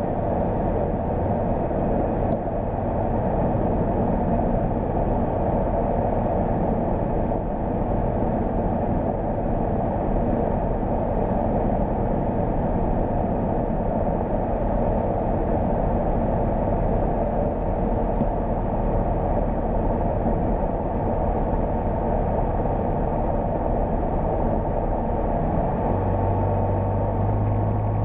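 Steady in-flight cabin noise of a Sting light sport airplane: the Rotax engine and propeller drone together with rushing air. A deeper steady hum joins near the end.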